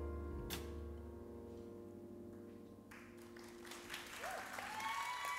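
The band's last chord rings out and fades away. About three seconds in, audience applause starts, joined by cheering and whooping voices.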